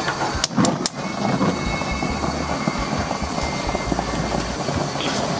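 Stainless gas grill being lit: a few sharp clicks in the first second as its knobs are turned, then a steady rushing noise with irregular low rumbles.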